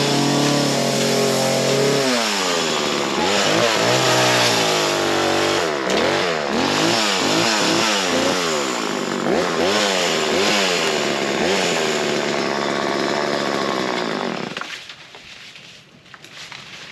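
Small gas chainsaw running, its engine revving up and down over and over as the throttle is worked through a cut, then stopping abruptly near the end.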